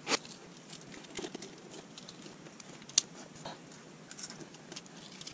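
Small clicks and taps of rail parts and a small screwdriver being handled while nuts are fitted and tightened, with sharp clicks near the start and about three seconds in.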